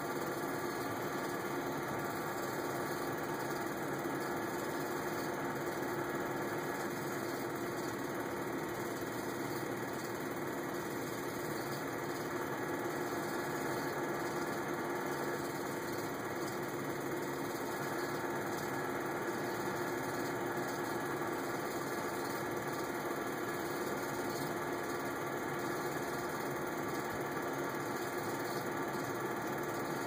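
Film projector running: a steady mechanical whirr with a constant low hum, unchanging throughout.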